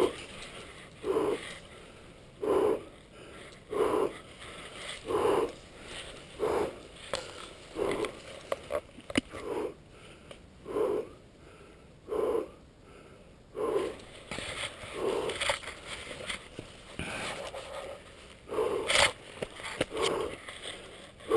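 A person's heavy breathing, about one breath every 1.3 seconds, after the jumper lands in a tree. The breathing grows less regular in the second half, with some rustling.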